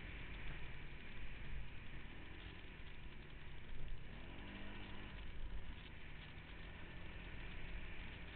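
Off-road vehicle engine running on a trail ride, its pitch rising a couple of times as the throttle opens.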